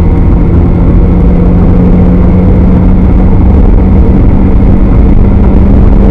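Spec Miata's four-cylinder engine running at steady high revs, its pitch creeping up slightly, heard onboard with heavy road and wind noise.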